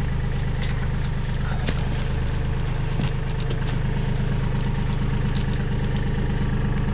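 Bobcat tractor's engine idling steadily, with a few sharp metallic clinks of log chain and grab hooks being handled.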